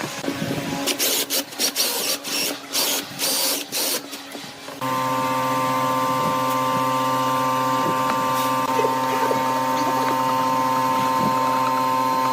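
An electric power tool in a workshop. First come short, irregular bursts of hiss. About five seconds in a motor switches on and runs at a steady, even hum.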